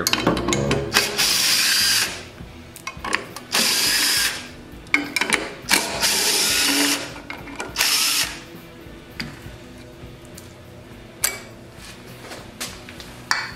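Cordless drill driving a quarter-inch socket in several short runs of about a second each, spinning out the screws of a small-engine air cleaner cover. Near the end there are a few light clicks as the loosened cover is handled.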